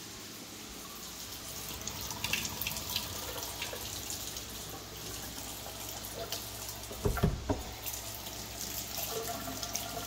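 Kitchen faucet running into a stainless steel sink, the stream splashing over a hand held beneath it as the water flow is checked. A brief low bump about seven seconds in.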